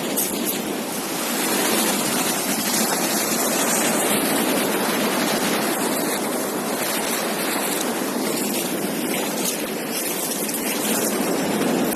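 Ocean surf washing onto a beach: a continuous rushing hiss of breaking waves that swells and eases every few seconds.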